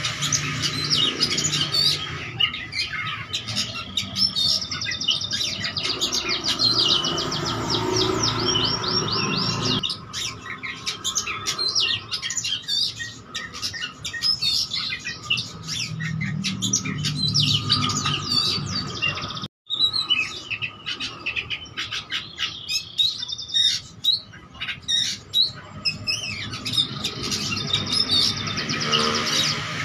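Caged oriental magpie-robin (kacer) singing without pause: a fast, varied stream of whistles, trills and chattering phrases in a full, mimicry-filled song. The sound cuts out for an instant about twenty seconds in.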